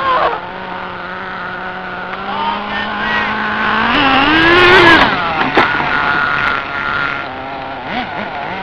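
RC car motor running at a steady pitch, then revving up about four seconds in and dropping off sharply a second later. A steady high whine follows for a couple of seconds.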